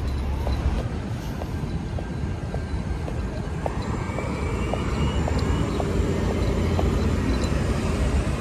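Manhattan street traffic: a steady low rumble of vehicles, with one vehicle growing louder as it passes from about halfway through. Light regular ticks about twice a second run under it.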